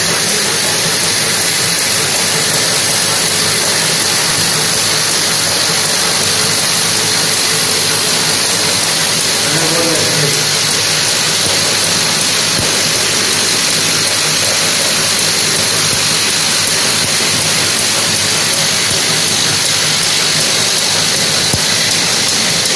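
Tablet strip packing machine running steadily, its vibratory bowl feeder shaking tablets round and down into the feed chutes as a dense, even mechanical noise.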